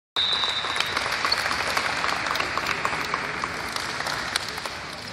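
Crowd applause: many people clapping at once, starting suddenly and slowly fading, for the teams' entrance onto the court. A short high steady tone sounds at the very start.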